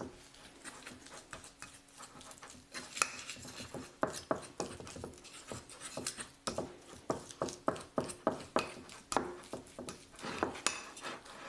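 A metal fork stirring and mashing a soft egg-yolk and cheese dough on a ceramic plate, scraping and clicking against the plate. The taps are sparse at first, then come two or three a second from about four seconds in.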